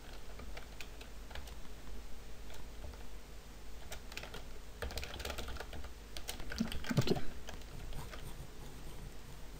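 Computer keyboard typing in irregular runs of keystrokes, busiest a little past halfway, with a dull heavier thump about seven seconds in.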